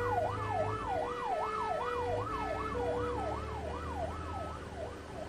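Emergency vehicle siren sounding a fast rising-and-falling yelp, about two and a half sweeps a second, growing fainter toward the end, with a low steady rumble underneath.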